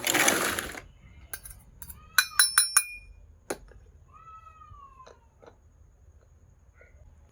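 Miniature steel toy kitchenware clinking: four quick metallic clinks that ring on briefly, about two seconds in, followed by a single tap. There is a short rustling burst at the start and a faint falling squeak-like tone in the middle.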